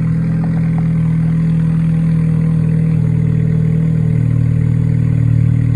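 Honda CR-Z's 1.5-litre four-cylinder engine idling steadily on a cold start through a straight-piped exhaust, a low drone at the tailpipe.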